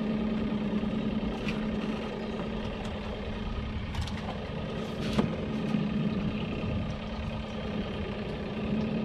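Boat motor idling steadily with a low hum, with a few short clicks and knocks about a second and a half, four and five seconds in.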